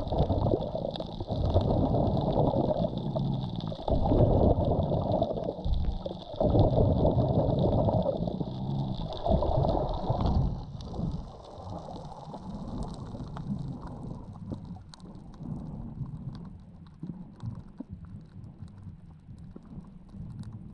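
Muffled water noise heard from an underwater action camera in its housing: uneven rushing surges about every two seconds for the first half while it swims near the surface, then quieter with faint scattered clicks once it is down in the reef channel.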